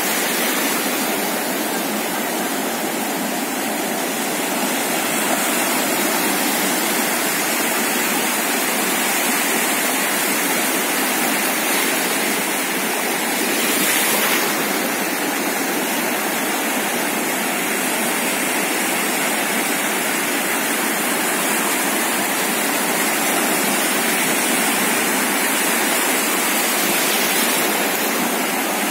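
Steady rush of sea surf washing on the shore, swelling briefly about fourteen seconds in.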